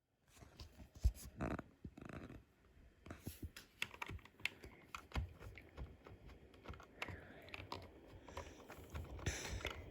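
Faint, irregular clicks and knocks, scattered one after another with short gaps, with no steady sound beneath them.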